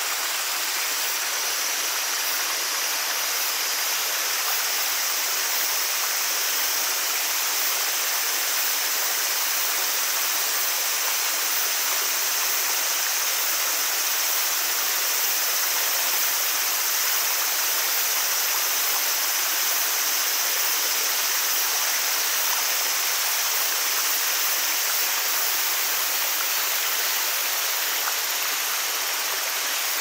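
Forest stream and small waterfall: a steady rush of water babbling and falling over rocks, unchanging throughout.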